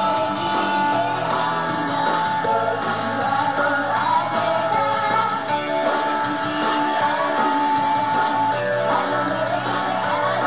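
Upbeat pop song with a steady beat and a woman singing live into a handheld microphone over it, heard through the stage PA.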